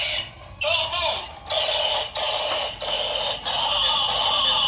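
A transforming toy police car's electronic sound chip playing a synthesized tune, in short phrases broken by brief gaps.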